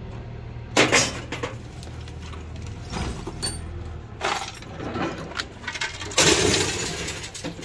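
Scrap metal parts clanking and clattering as they are handled and tossed out of a van, with the loudest crash about six seconds in. A steady low hum runs underneath.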